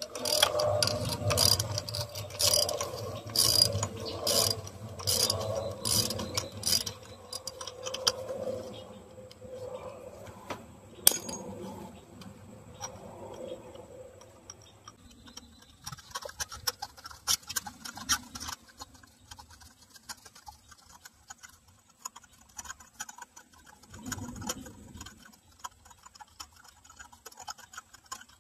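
Socket ratchet clicking in regular strokes, about one and a half a second, as a spark plug on a 2012 Scion xD's engine is turned. Later come one sharp click and then fainter, quicker clicks and tool handling.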